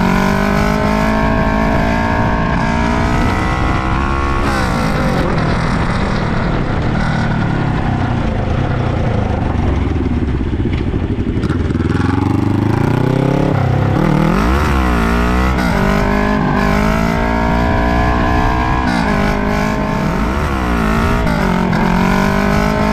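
Suzuki GS400 parallel-twin engine running through an SP chara-o aftermarket exhaust with its silencer fitted, revs rising and falling as the bike is ridden. In the second half it gives a series of quick throttle blips.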